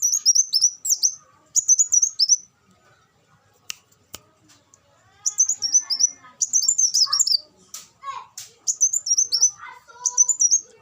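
Kolibri wulung sunbird singing: bursts of rapid, high-pitched twittering made of quick falling notes, each phrase lasting about a second, with short pauses between and a longer lull near the middle.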